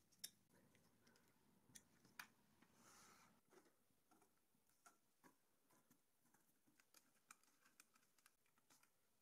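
Near silence, with a few faint clicks from an Allen key turning bolts in the acrylic frame plates; the two clearest come in the first couple of seconds.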